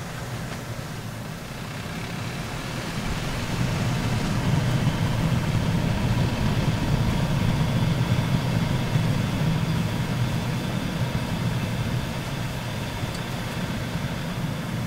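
Wheel-arch noise from a moving Mitsubishi Chariot (N43W), picked up by a microphone clipped into the fender: a steady rumble with a hissing, swishing 'shara-shara, shaa-shaa' noise over it, which the owner takes for a dragging brake. It gets louder about four seconds in and eases off slightly near the end.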